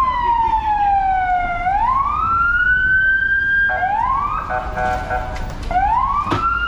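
Ambulance siren wailing, its pitch sliding slowly down and back up in long sweeps. A steady car horn sounds for about two seconds midway through, and there is a sharp knock near the end.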